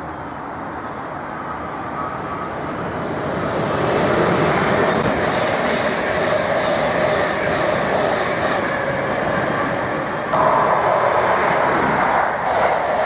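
A Thameslink Class 700 electric multiple unit passing through at speed, its noise building from about two seconds in to a steady rush. About ten seconds in the sound changes abruptly and grows louder as an East Midlands Trains diesel train passes at speed.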